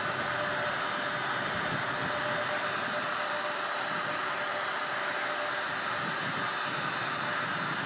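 Steady fan-like hiss and hum from a standing electric passenger train, with a faint steady tone under it.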